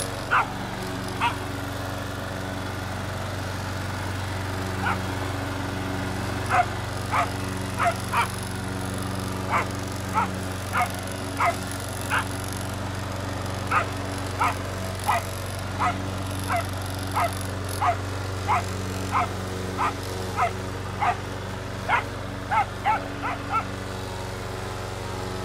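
A dog barking again and again in short sharp barks, about one to two a second with a couple of brief pauses. Under the barks runs the steady drone of a running lawn mower engine, which the dog is going after.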